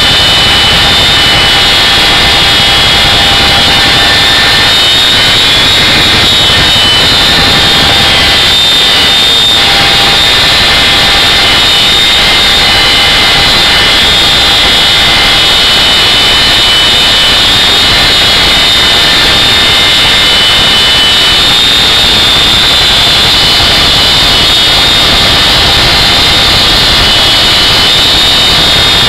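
Loud, steady cabin noise of a CH-47 Chinook helicopter in flight: twin turboshaft engines, transmissions and tandem rotors, with a constant high whine, heard from inside with the rear ramp open.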